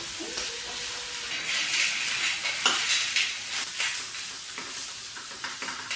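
Sliced ivy gourd (tondekai), onions and green chillies sizzling in oil in a frying pan, stirred with a spoon that scrapes and clicks against the pan now and then.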